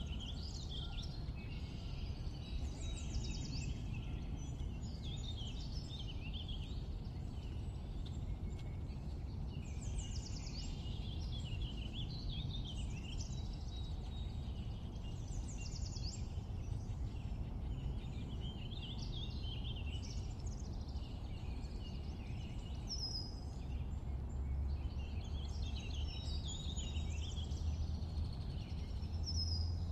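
Birds chirping in short repeated calls, some rising and some falling, over a steady low rumble of background noise.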